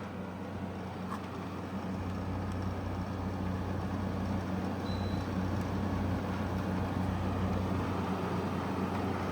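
Arctic King 5000 BTU window air conditioner running on cool with the fan on low: a steady compressor hum under the rush of the fan, growing slightly louder.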